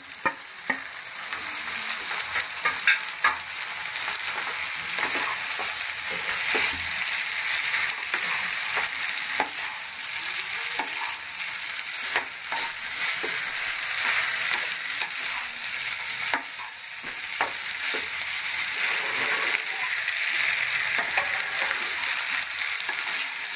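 Quartered idlis sizzling as they are stir-fried with vegetables and sauces in a hot pan, with a steady sizzle throughout. A wooden spatula scrapes and knocks against the pan again and again as they are tossed.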